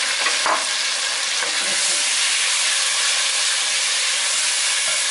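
Sliced onions and ginger-garlic paste sizzling in hot oil in an aluminium pot as a wooden spatula stirs them, a steady frying hiss with a scrape of the spatula about half a second in.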